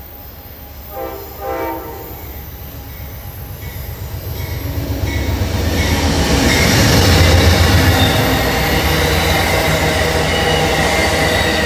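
Amtrak train sounding two short horn blasts about a second in, then its GE P42DC diesel locomotive approaching and passing close by. The engine and wheel noise builds to its loudest around six to eight seconds in, followed by the steady rumble of the stainless-steel passenger cars rolling past.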